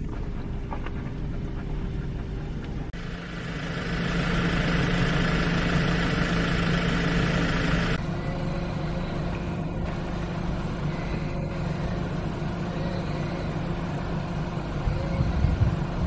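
A car engine idles with a steady low hum. Between about three and eight seconds in, a steady high hiss sits over it and cuts off suddenly.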